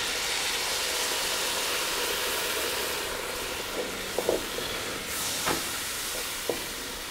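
Cola hitting a hot cast-iron Dutch oven of fried onions, peppers and spices, hissing and sizzling into steam as it deglazes the pot. The hiss slowly fades, with a few light knocks of a wooden spoon stirring in the second half.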